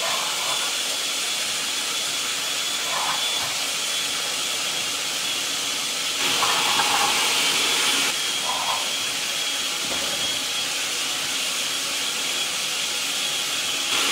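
Countertop blender with a glass jar running steadily, grinding tomatillo into a smooth sauce: an even, hissing motor whir with a thin high tone over it. It gets a little louder for a couple of seconds about halfway through.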